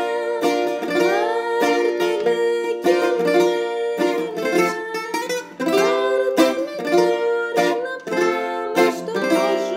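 Greek bouzouki picked with a plectrum, playing a melody in the Saba (Sabah) mode with quick triplet strokes.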